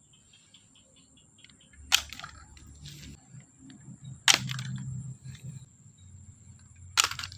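Three sharp clicks about two and a half seconds apart, over a faint steady high whine.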